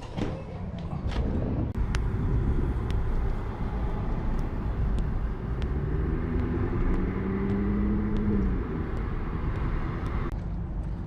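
Car driving, its engine note rising as it accelerates from about six to eight seconds in, over steady road rumble and a hiss that cuts off suddenly about ten seconds in.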